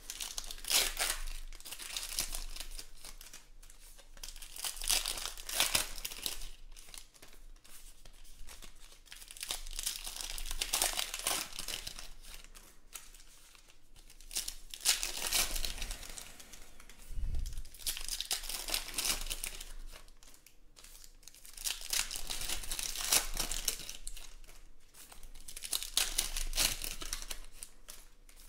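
Foil wrappers of baseball card packs being torn open and crinkled one after another, in bursts every few seconds, with cards handled and stacked between them.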